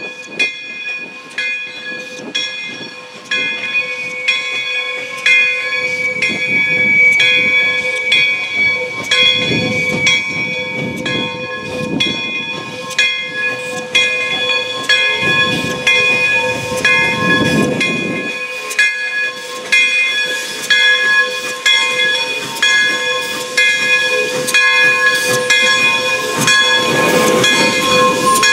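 Pere Marquette 1225, a 2-8-4 Berkshire steam locomotive, working with steam hissing in swells, while a bell rings steadily about twice a second.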